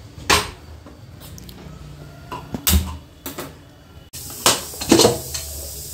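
Aluminium pressure cooker clunking against the metal pan support of a gas stove as it is set down and handled: a handful of separate sharp knocks, with a second cluster near the end.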